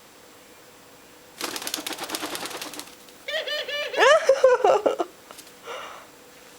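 Dove's wings flapping: a quick run of even clicks lasting about a second and a half. After it comes a louder vocal sound that slides up and down in pitch for nearly two seconds.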